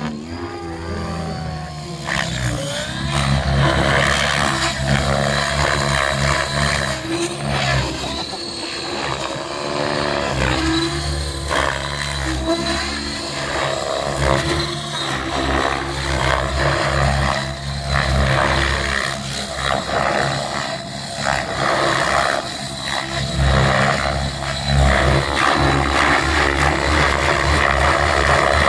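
Align T-Rex 700E electric RC helicopter flying aerobatics: its main rotor blades whooshing over the high whine of its brushless motor and gears, the pitch rising and falling as it manoeuvres. It gets louder about two seconds in as it comes down close.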